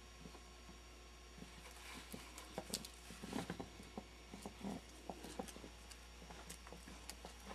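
Skunks moving about and scuffling, making faint irregular pattering and light knocking that is busiest in the middle, over a steady low hum.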